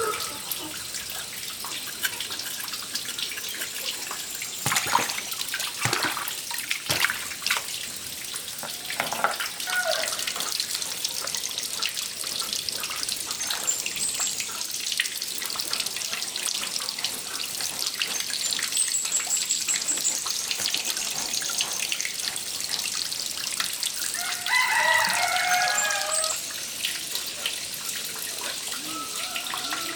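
Running water splashing, as when washing something under a tap, with small knocks and clatters now and then. A chicken calls briefly a little before the end.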